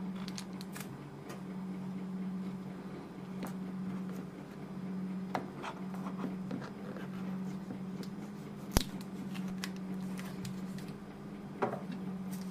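Hands handling a plastic-wrapped headset box: scattered crinkles and taps of the wrap and cardboard, with one sharp click about two-thirds of the way through, over a steady low hum.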